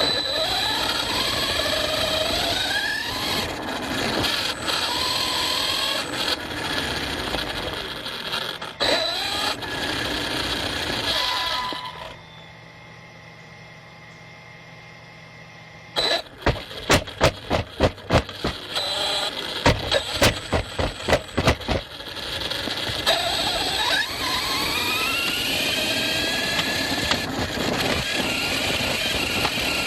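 ARRMA Fireteam 6S RC car's brushless motor and drivetrain whining, the pitch rising and falling as the throttle is worked. About halfway through it goes much quieter for a few seconds, then a quick run of sharp knocks, roughly a dozen over six seconds, before the whine returns.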